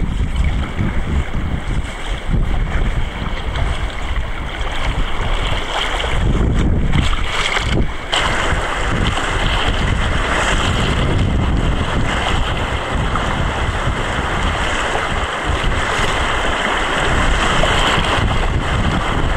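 Wind buffeting the microphone over the steady rush and splash of river water around inner-tube rafts.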